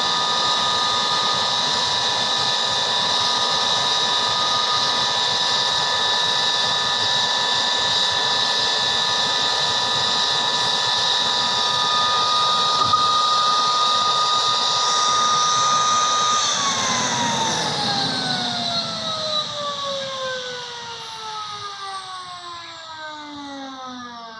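Turbine whine from a CH-47 Chinook helicopter, steady and high-pitched, then spooling down: from about two thirds of the way in the whine falls steadily in pitch and fades as the turbines shut down.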